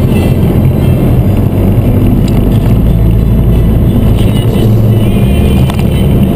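Mini Cooper S being driven: a steady low engine and road rumble.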